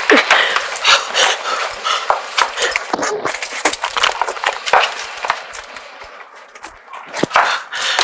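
A dog barking repeatedly in short, irregular barks.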